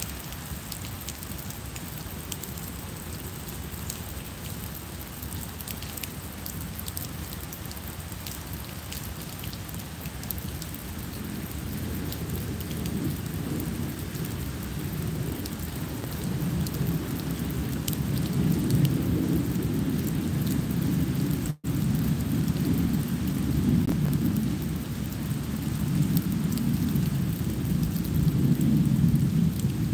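Steady rain falling on paving and foliage, with fine drop ticks throughout. A low rumble of thunder builds from a little under halfway through and stays loud, swelling and fading. The sound cuts out for an instant about two-thirds through.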